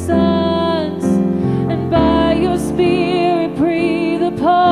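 Slow worship music: a singer holding long notes with vibrato over sustained keyboard chords.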